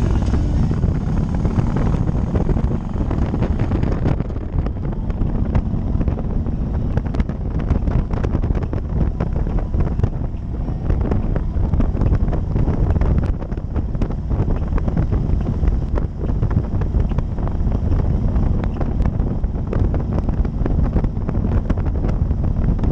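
Wind buffeting the microphone of a motorcycle riding at road speed, a steady low rumble of wind and engine with constant gusty flutter.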